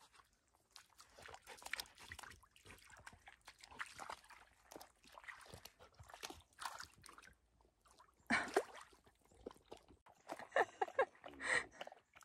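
A dog lapping and splashing at water, heard as irregular small clicks and splashes. A louder sudden sound comes about eight seconds in, and a few short pitched sounds follow near the end.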